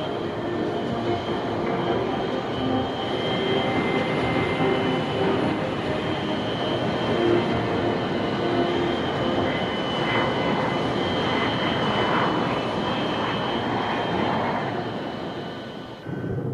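Jet engines running on an aircraft carrier's flight deck: a steady roar with a high, even turbine whine. It fades briefly near the end.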